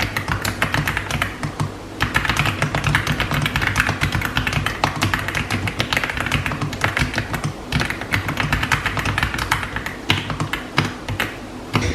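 Typing on a mechanical keyboard: a fast, continuous run of key clacks, with a short pause about two seconds in.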